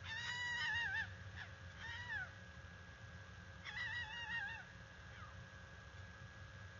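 Female fox (vixen) giving her mating call: a wavering, scream-like cry about a second long, then two short falling yelps. About four seconds in comes another wavering scream, followed by a faint short yelp.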